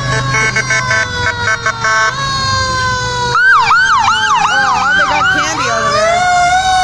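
Fire engine sirens: a long, slowly falling wail runs throughout, with quick repeated tones over it in the first two seconds. A fast yelping siren joins in about three and a half seconds in, and another wail starts rising near the end.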